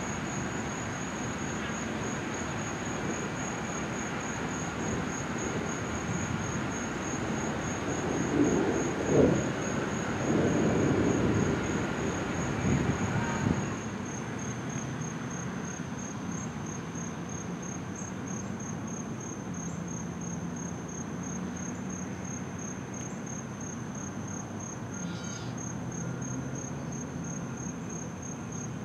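Crickets chirping in a steady, rapid high trill over outdoor background noise. About eight to thirteen seconds in, a louder low rumble swells and fades; the background then drops quieter at a cut about fourteen seconds in, leaving mainly the insects.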